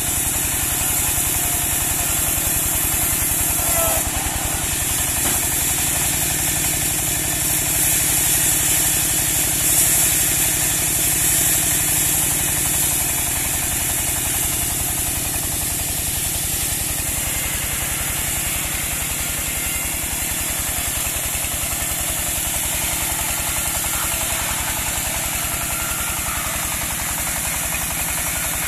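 Engine of a portable bandsaw sawmill running steadily, with an even, fast low pulse and a constant high hiss.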